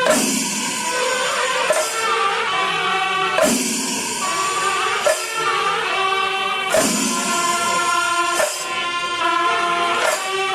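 Background music: held sung or choral tones over a steady beat, with a percussive stroke about every one and a half to two seconds.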